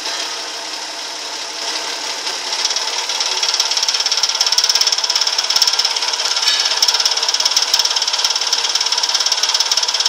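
Car engine idling with a fast, steady knocking clatter, the strange knock at idle whose cause is unknown. The clatter grows louder about three seconds in.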